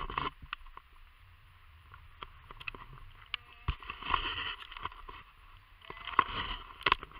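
Rustling and knocking on a moving camera's microphone, with wind noise. It swells about four seconds in and again near the end.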